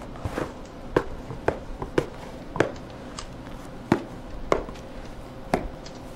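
About eight sharp taps on a hard surface, unevenly spaced at roughly one or two a second, over a faint steady hum.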